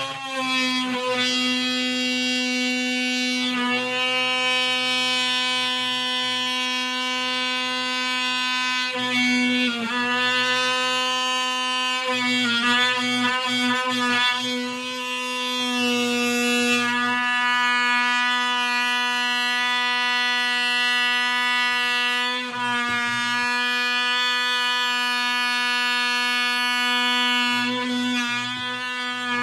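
DeWalt oscillating multi-tool running steadily while cutting through the base of a kitchen cupboard, a loud buzz on one fixed pitch that dips briefly a few times.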